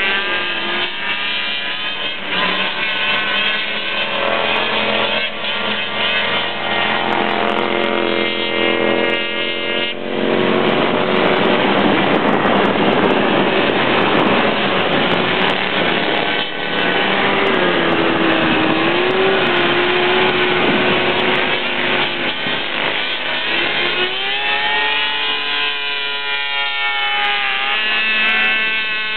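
Engines of several six-wheeled Attex amphibious ATVs racing on a dirt track, with engine notes rising and falling as the machines rev and pass. One machine is loudest and nearest through the middle, from about 10 to 22 seconds, its engine note dipping and rising again near 19 seconds.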